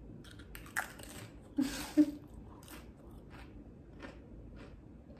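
Crunchy Pringles Wendy's Baconator potato crisp bitten, with the loudest crunch about two seconds in. Chewing crunches follow, about one and a half a second, growing fainter.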